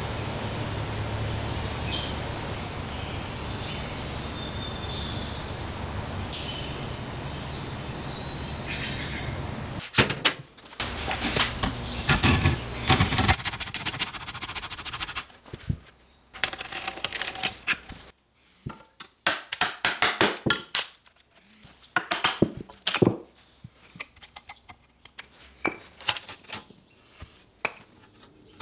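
A steady hum with a few faint high chirps, then a hacksaw cutting through the old wooden handle of a rusted Japanese maebiki saw in quick back-and-forth strokes. Near the end come scattered light clicks and knocks as the bare metal tang is handled.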